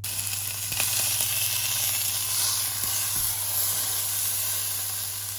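A joint of beef searing in a hot frying pan: loud, steady sizzling of fat and meat juices, starting suddenly as the meat goes in.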